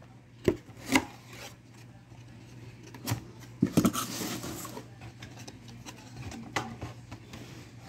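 Cardboard box being opened and handled: a few sharp knocks and taps against the cardboard, with a short stretch of scraping as the flaps rub about four seconds in.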